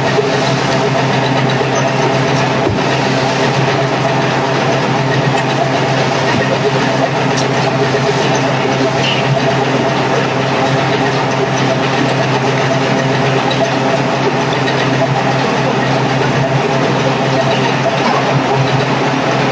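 A machine running steadily with a constant, unchanging hum.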